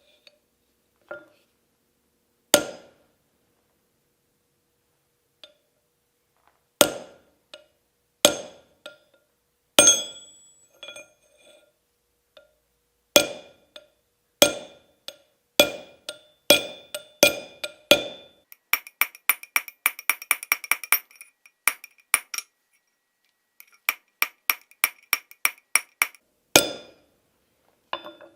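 Hammer striking steel, each blow ringing. First come single hard blows a second or so apart, then a quick run of light taps at about eight a second, a pause, and a slower run of taps ending in one hard blow.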